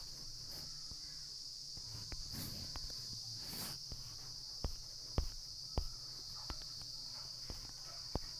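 A steady high-pitched background chirring, with several sharp clicks and knocks from the phone being handled, most of them past the middle and one near the end.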